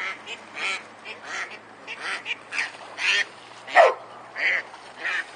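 A duck quacking over and over in short calls, about two a second, with one louder call about four seconds in.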